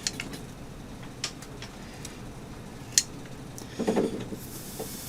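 Handling of 3D-printed plastic parts: scattered light clicks and taps, one sharper click about three seconds in, a brief clatter around four seconds, and a short hiss near the end.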